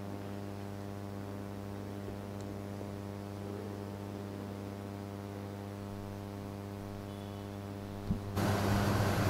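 Steady electrical mains hum in the church's microphone and sound system. About eight seconds in there is a short thump, and then a louder hiss comes in.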